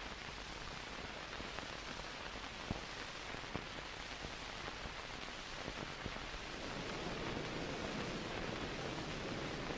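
Steady hiss of an old film soundtrack, with a couple of faint clicks.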